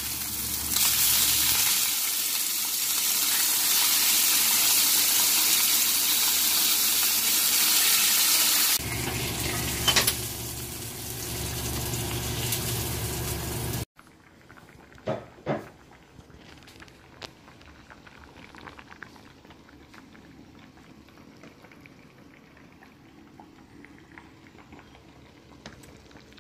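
Slices of pork belly sizzling loudly as they fry in a pan. The sizzle cuts off suddenly about fourteen seconds in, leaving a quiet stretch with a few light clicks.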